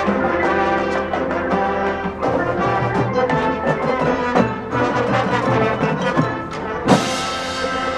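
Marching band playing: brass and wind chords over drums and front-ensemble percussion, with a loud accented hit about seven seconds in, after which the full band sounds brighter.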